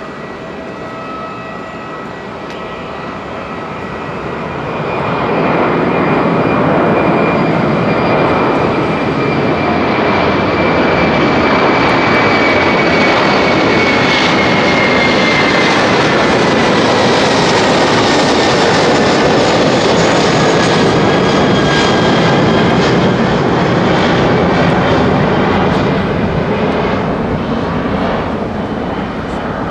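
Airbus A330-300's two General Electric CF6-80E1 turbofans at takeoff thrust as the airliner lifts off and climbs past. The jet roar swells about five seconds in and stays loud, with a whining tone that slides down in pitch as it passes, then begins to fade near the end.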